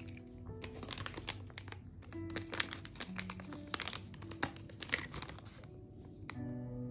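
Paper crinkling and rustling, with many sharp crackles, as the pages of an A6 journal are handled and turned, over soft acoustic guitar background music.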